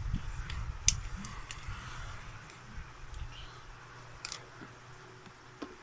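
Homemade slime being handled: a few scattered sharp clicks and pops over a low rumble of handling noise, the loudest click about a second in.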